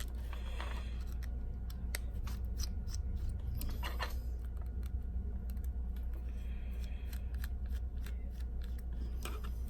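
Small precision screwdriver turning out the tiny screws of an iPhone 6 Plus's LCD shield plate: a run of irregular light clicks and ticks, with a steady low hum underneath.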